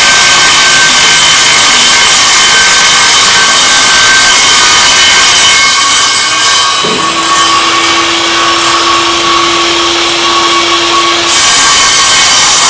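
Vertical panel saw's circular blade ripping a sheet of OSB lengthwise as the sheet is pushed through it: a loud, steady motor whine over rough cutting noise. About seven seconds in the cutting noise eases and a lower steady hum holds for about four seconds before the full cutting noise comes back.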